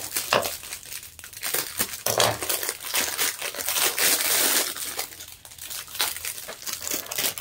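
A clear plastic bag crinkling and crackling as hands squeeze it and pull a heart decoration out of it. The crackle is busiest in the first half and thins out toward the end.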